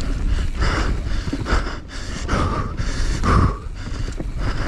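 A rider's heavy panting breaths, about one a second with the loudest a little past three seconds in, over a steady low rumble of riding noise.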